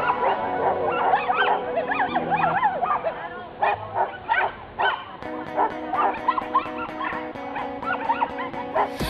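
A small dog yipping and barking repeatedly in short high calls, over background music.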